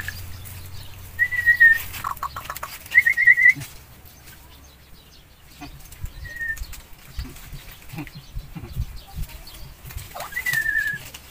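A small dog whining in short, high, wavering whimpers, four times, begging for food from the bowl. Faint taps come in between.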